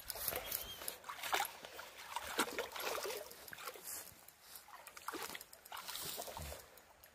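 Water splashing and sloshing as a German Wirehaired Pointer wades through shallow muddy water after a carp. The splashes come irregularly, louder in the first few seconds and fainter toward the end.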